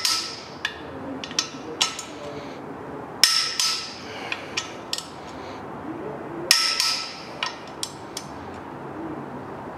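Torque wrench clicking off as flexplate bolts on an LS V8 reach their 74 ft-lb final torque: two sharp clicks with a short metallic ring, about three seconds apart. Lighter ticks of the ratchet and socket come between them as the wrench moves from bolt to bolt.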